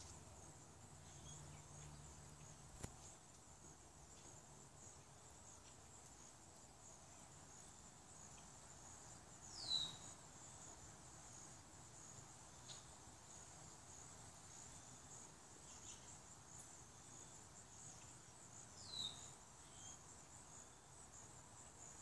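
Faint, steady high-pitched trilling of an insect chorus. A bird gives a short high call that falls in pitch, twice, about ten and nineteen seconds in.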